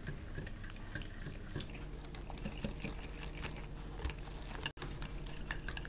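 Wire whisk stirring egg mixture into flour in a glass bowl: a quick patter of small scrapes and clicks against the glass.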